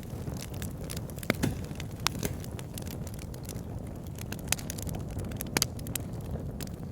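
Wood fire burning in a log burner: a steady low rumble of flame with irregular crackles and sharp pops of burning logs, the loudest pops about 1.3, 4.5 and 5.6 seconds in.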